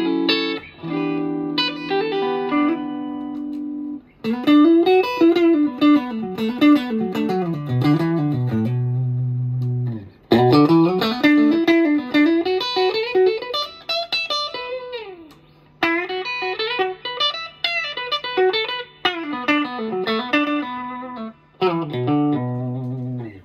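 Telecaster-style electric guitar with stock pickups and rewired budget circuitry, played on a clean tone through a Morgen PR12 amp. It plays a few short phrases of chords and single-note lines, with a downward slide about halfway through.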